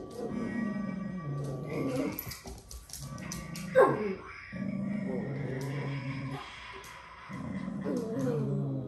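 Dog growling low in on-and-off stretches, a warning over a bone, with one sharp high cry about four seconds in that falls quickly in pitch.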